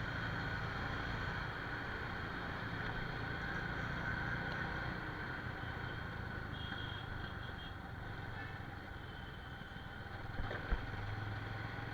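Motorcycle engine running steadily at cruising speed, with constant road and wind hiss. A single short knock comes about ten and a half seconds in.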